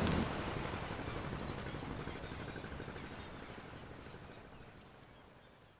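Outdoor shoreline ambience, a steady wash of wind and water noise, fading out slowly to nothing.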